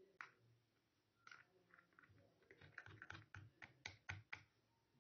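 Small wooden spoon stirring thick flour-and-water glue paste in a plastic tub, its tip tapping and scraping against the sides. Faint sharp clicks: a few scattered ones, then a quick run of about a dozen in the second half.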